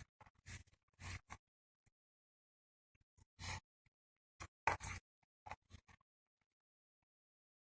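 Eating noises: a scattering of short crunches, clicks and scrapes in irregular clusters, with a few gaps between them.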